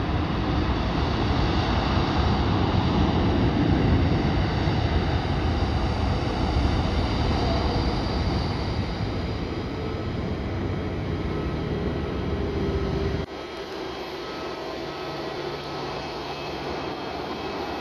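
Airbus A330-800's Rolls-Royce Trent 7000 jet engines running as the airliner rolls along the runway, a steady heavy rumble with a faint whine above it. About thirteen seconds in, the deep rumble drops away suddenly, leaving a quieter, thinner engine noise.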